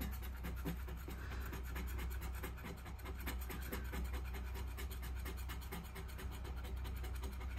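Scratching off a lottery scratch ticket: a quick, steady run of short scratching strokes.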